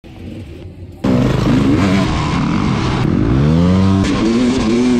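Dirt bike engines on a motocross track, cutting in loud about a second in. The engines rev up and down, with one long rise in pitch under acceleration that drops back about four seconds in.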